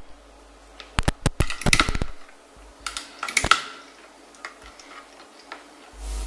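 Clicks and knocks of RCA plugs and cables being handled and pushed into the jacks of an open audio mixer board, in two short clusters, with a dull thump near the end.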